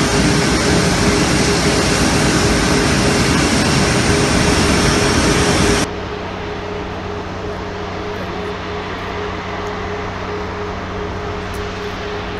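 Airbus A340-600 jet airliner noise: a loud, steady rush with a steady tone running through it. About six seconds in it cuts off suddenly to a quieter, steady hum of the four-engine airliner's engines as it taxis.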